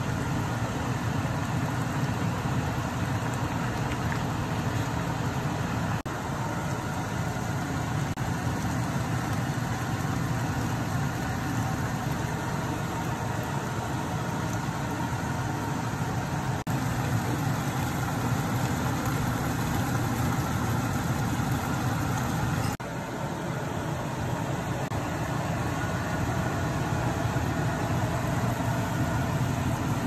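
Steady machine hum and rushing noise from a running motor, with small shifts in level where the footage is cut.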